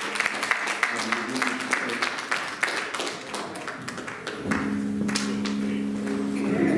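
Congregation clapping, with a few voices calling out. About four and a half seconds in, an instrument begins holding a steady chord.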